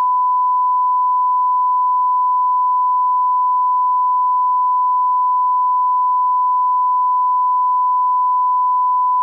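Steady 1 kHz reference tone of bars-and-tone, a single pure beep held at one pitch and level: the line-up signal used for setting audio levels before the programme.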